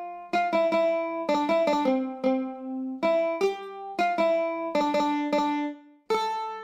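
A mandolin picking a slow single-line melody note by note, with many notes struck twice in quick succession; the line breaks off briefly about six seconds in.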